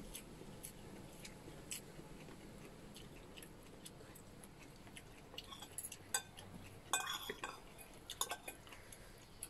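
A person chewing food with faint crunches, then a spoon clinking and scraping against a ceramic plate in the second half, loudest about seven seconds in.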